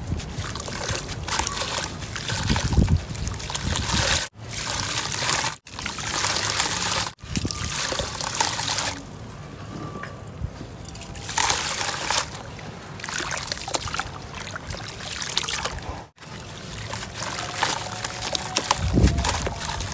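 Soft sand-cement chunks crumbling and dissolving as hands squeeze them in a basin of water, with wet trickling and sloshing. The sound swells and fades and is broken by four brief silent gaps.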